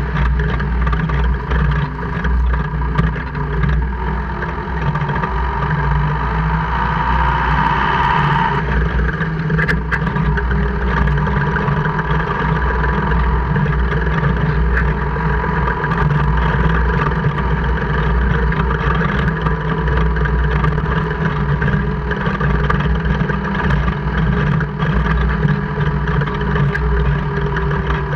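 2002 Jeep Cherokee KJ running along, engine and drivetrain giving a steady low rumble with a whine over it and one sharp click about ten seconds in. The owner is tracing a gear-grinding/clicking drivetrain noise that appears only in 4H or 4L.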